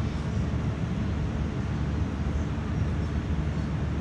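Steady low rumbling room noise, with no voices and no sudden sounds.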